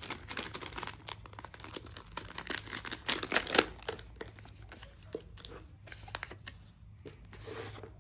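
Crinkling and rustling of packaging as the small magnetic rangefinder clip is handled. It is busiest in the first few seconds, with a louder crackle about three and a half seconds in, then dies down to softer rustling with a brief crinkle near the end.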